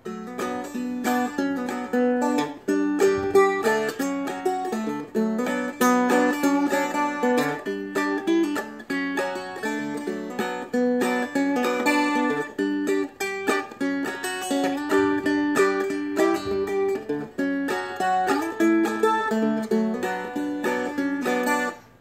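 Seagull Merlin, a four-string dulcimer-style instrument tuned C-G-c-c, played in two-finger clawhammer style: a steady rhythmic run of plucked bass notes and pinched strums, several a second.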